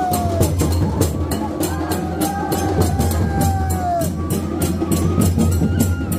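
Festival procession music: drums beating steadily, with sharp hits about four times a second, and a held high melody note that slides down in pitch a few times.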